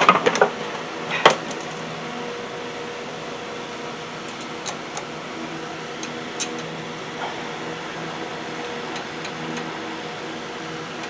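Metal clanks and clicks from a brake caliper and tools being handled: a cluster of sharp clanks in the first second and a half, the loudest a little over a second in, then a few light clicks. A steady machine hum runs underneath throughout.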